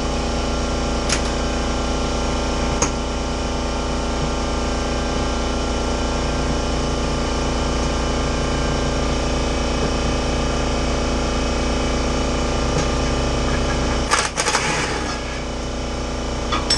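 Air compressor running with a steady mechanical drone, stopping near the end, followed by several sharp metallic clinks and rattles of tools.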